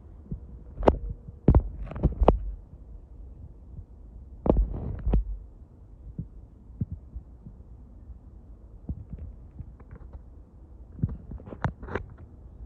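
Irregular low thumps and sharp knocks in small clusters, over a faint low rumble.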